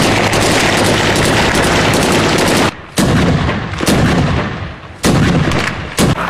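Close gunfire in combat: a continuous burst of automatic fire for nearly three seconds, then four single loud shots that each echo away, about a second apart.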